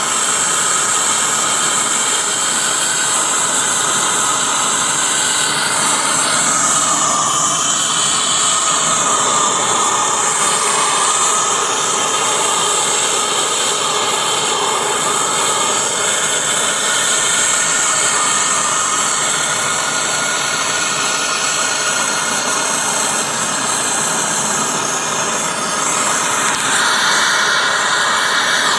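Gas torch burning with a loud, steady hiss while heating metal for soldering.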